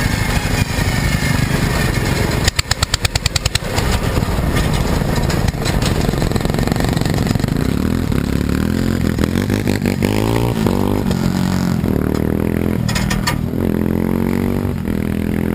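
Small lawn mower engines running loud, revving up and down several times in the second half. A quick run of sharp pops comes about two and a half seconds in.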